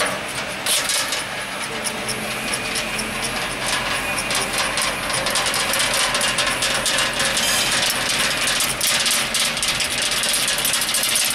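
BWZ S channel letter bending machine running: a steady mechanical whir with rapid, irregular clicking that grows busier partway through.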